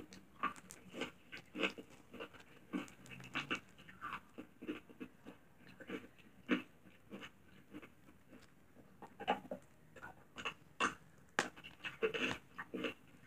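Pink slime squeezed and stretched between the hands, giving irregular short squishes and pops, several a second, thinning out for a moment in the middle.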